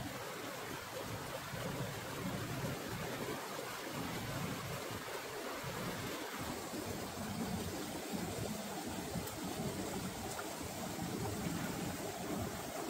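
Shallow rocky stream running over stones, a steady sound of flowing water.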